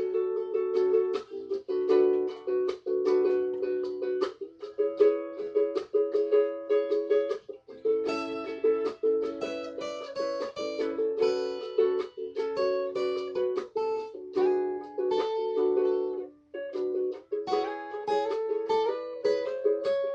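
Chords strummed on a small plucked string instrument in a steady rhythm, with a couple of brief breaks.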